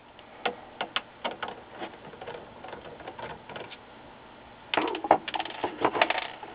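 Phillips screwdriver working small screws out of an LCD monitor's sheet-metal chassis: light, scattered metallic clicks and ticks, then a busier clatter of metal about five seconds in.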